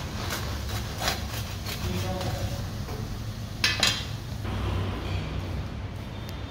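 Kitchenware being handled: a few sharp clinks and knocks, the loudest pair a little under four seconds in, over a steady low rumble.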